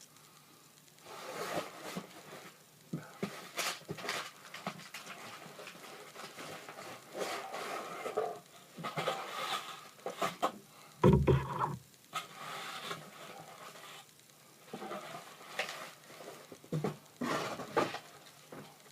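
Rustling and clicking from a box and its packaging being handled, in irregular bursts, with one heavy thump about eleven seconds in.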